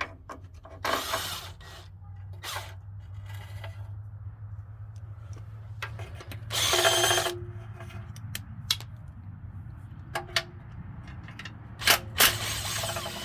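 Cordless power tool spinning out oil pan bolts in several short whirring runs, the longest and loudest in the middle of the stretch and another near the end.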